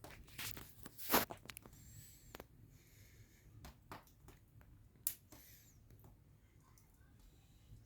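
Wood fire in a fireplace crackling, with irregular sharp pops, the loudest about a second in and another about five seconds in.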